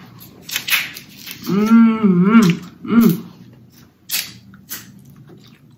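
Close-up eating sounds of snow crab dipped in sauce: several quick, sharp slurps and smacks. In the middle comes a wavering hummed 'mmm' lasting about a second, then a shorter one.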